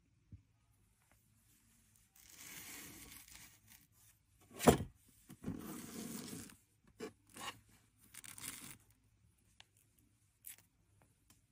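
Handling noises: potato-and-sunflower-seed hedgehogs being picked up, moved and set down on a wooden tabletop, with stretches of scraping and rustling, a sharp knock a little under five seconds in, and a few small clicks.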